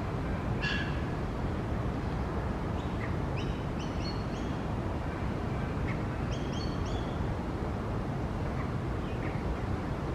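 Young Australian magpie giving short clusters of soft high chirping calls, four times, over a steady low background rumble.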